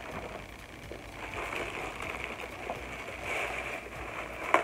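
Plastic packaging rustling and crinkling as it is handled and unwrapped, with one sharp click near the end.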